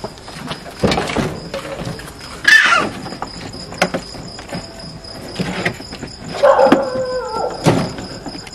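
An animal cries out several times, with short sharp cries and one longer call about seven seconds in. Knocks and scrapes sound as a plastic pet carrier is slid into the back of a van.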